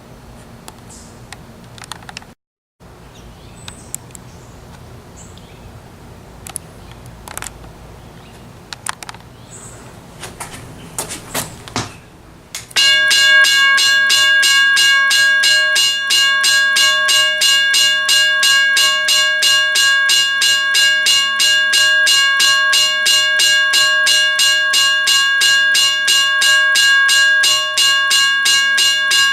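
Faint clicks and taps over a low hum. About 13 seconds in, a Western Railroad Supply WRRS 1203 mechanical crossing bell starts ringing loudly, with rapid, evenly spaced strokes of the hammer on the gong, several a second, under a steady ringing tone.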